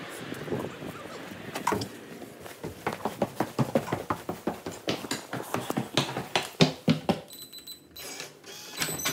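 Footsteps hurrying up indoor stairs: a fast, regular run of steps, about three or four a second, ending about seven seconds in.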